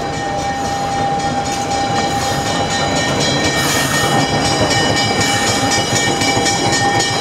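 Narrow-gauge diesel locomotive passing close by at low speed, its engine running over the rumble of the train on the rails, followed by its open passenger cars. Several steady high-pitched tones hold throughout, and a brief hiss rises about four seconds in as the locomotive's louvered hood goes past.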